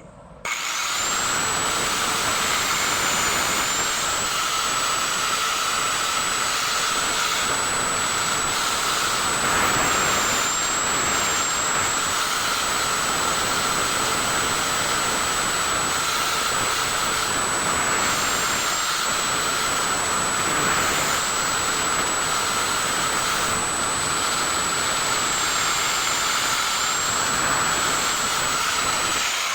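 A small high-speed power tool, its motor spinning up about half a second in and running with a steady high whine. The pitch sags briefly several times as the tool is loaded against the work, and it winds down at the very end.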